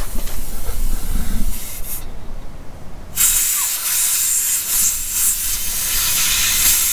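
Compressed air hissing steadily out of a leak in the Unimog U1300L's air system at the air tank, starting about three seconds in after a low rumble. A part there is not resealing, which is why the air pressure would not build.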